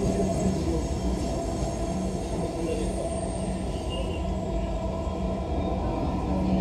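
Dhaka Metro Rail MRT Line 6 electric train running along its track, heard from inside the carriage: a steady rumble with a constant hum.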